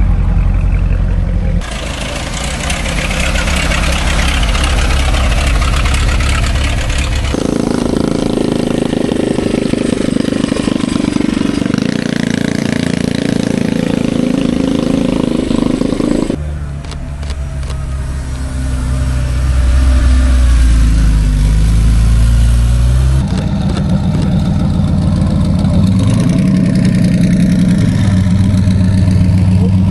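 Car engines running and revving as several different cars drive by, the sound switching abruptly from one car to the next every few seconds, with pitch rising and falling as they rev.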